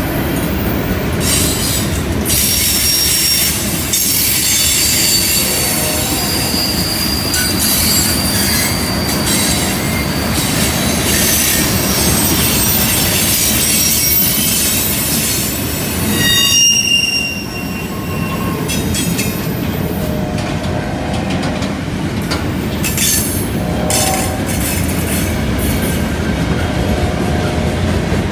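Freight cars of a passing train rolling over a curve: a steady rumble of steel wheels on rail, with high-pitched flange squeal rising and fading on and off.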